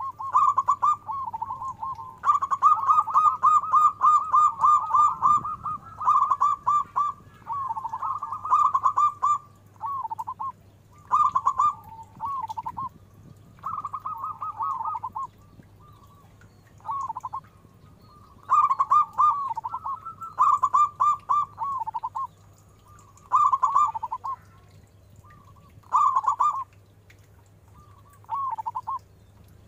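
Zebra dove (perkutut) cooing in rapid staccato phrases, each about a second long, repeated again and again with short pauses between. The voice is deep and full.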